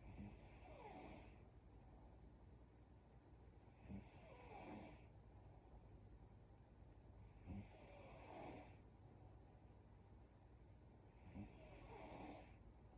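A young woman snoring faintly in her sleep: four snores roughly every three and a half to four seconds, each opening with a brief catch and running on for about a second.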